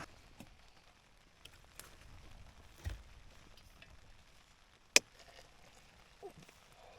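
Quiet, with scattered small clicks and knocks: a low thump about three seconds in and one sharp, loud click about five seconds in.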